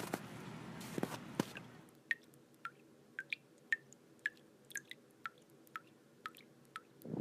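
Water dripping: single drops landing about twice a second, each a short, pitched plink. For the first two seconds there is a steady hiss with a few clicks before the drips stand out alone.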